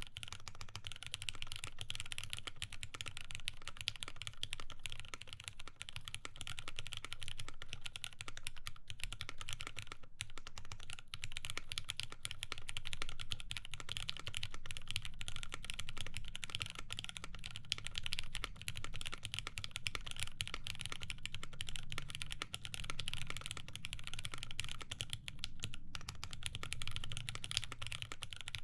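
Continuous typing on a mechanical keyboard with lubed Cherry MX Black linear switches, a polypropylene plate and GMK keycaps: a dense, steady stream of keystrokes, with short pauses about ten seconds in and again near the end.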